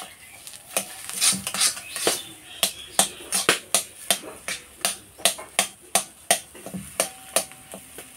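A metal spatula knocks and scrapes against a black iron kadai at about three strikes a second as frying taro chunks are stirred and broken up. The strikes stop shortly before the end.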